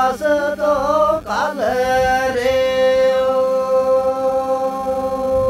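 Unaccompanied male voice singing a Gojri bait, a folk verse, in gliding melodic phrases, then settling about two and a half seconds in on one long held note.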